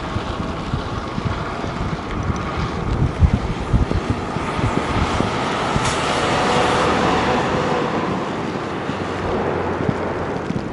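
Wind buffeting the microphone in uneven gusts over a steady vehicle rumble.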